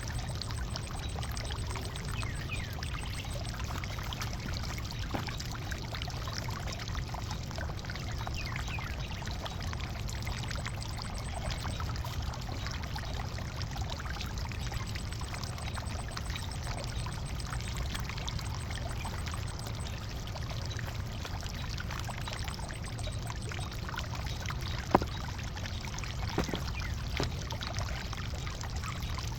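Potatoes being dug from garden soil: a steady rustle of loose, crumbling dirt with scattered small ticks, and one sharp knock about 25 seconds in.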